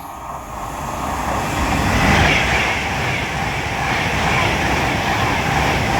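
A train passing close by on the line, its rolling rumble and wheel-on-rail hiss building over the first two seconds and then holding steady.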